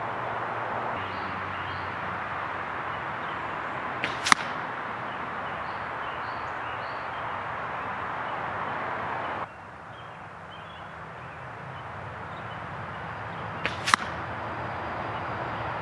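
Two crossbow bolts tipped with 100-grain broadheads striking a foam block target, each a sharp crack about nine seconds apart, with a fainter click a fraction of a second before each. A steady hiss runs underneath.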